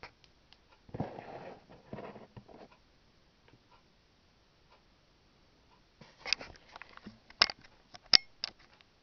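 Handling noise: a soft rustle about a second in, then a cluster of sharp clicks and taps near the end.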